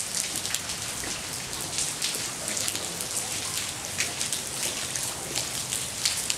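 Steady rain falling on wet paving: an even hiss dotted with many quick, sharp drip and spatter ticks.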